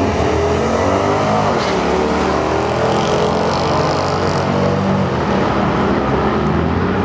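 Two drag-racing cars launching and accelerating hard down the strip, their engines revving up through the gears.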